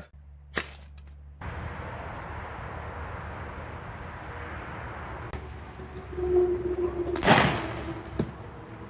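A plastic bottle pumped to about 110 psi bursting with a single loud bang when shot, about seven seconds in, over a steady background hiss.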